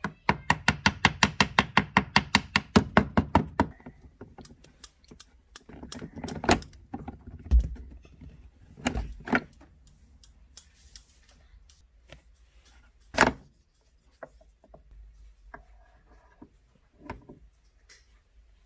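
Hand tools and metal parts being worked at a car's shifter linkage: a fast, even run of sharp clicks, about eight a second, lasting about three and a half seconds, then scattered single knocks and clinks.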